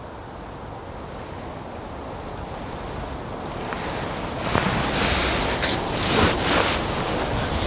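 Gusty wind rushing through bankside trees and reeds and buffeting the microphone. It builds steadily, then comes in strong gusts over the second half.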